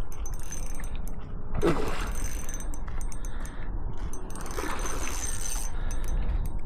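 Fishing reel being cranked against a hooked bass, its gears giving runs of fine mechanical clicking, with a steady low wind rumble on the microphone and a couple of short, louder swishes partway through.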